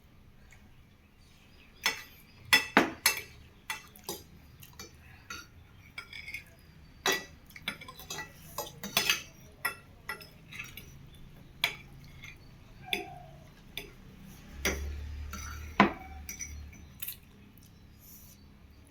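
Spoons or forks clinking and scraping against plates while eating noodles, in irregular sharp clicks with a few louder knocks.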